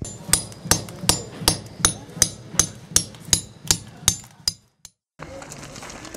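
A hammer striking in a steady rhythm, about a dozen blows at nearly three a second, each with a short ring. The blows stop about four and a half seconds in, and after a brief silence a faint steady background follows.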